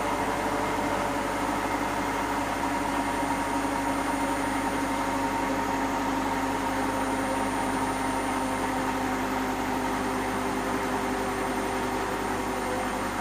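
Hotpoint NSWM 843C Invermotor washing machine spinning its empty drum on a 1400 rpm spin cycle: a steady whirring hum with several held tones. The owner is unsure whether the drum bearings are starting to go.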